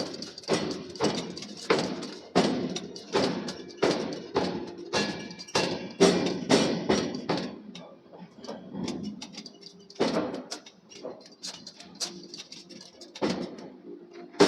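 Forging hammer striking steel, repeated heavy blows about one and a half times a second with a metallic ring between them.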